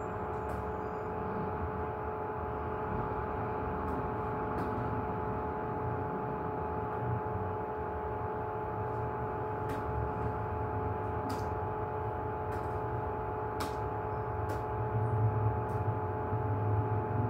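Steady machine hum carrying a few held tones, with scattered light clicks of a keyboard and mouse as text is typed in; the low rumble grows a little near the end.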